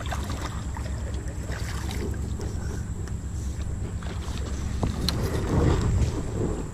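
Wind rumbling on the microphone, with scattered knocks and a louder burst of noise in the last couple of seconds.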